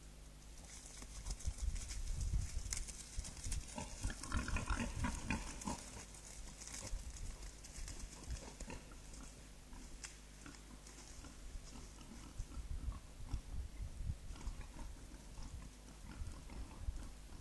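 Wild boars grunting in a short cluster about four to six seconds in, amid scattered crackling and a low steady hum.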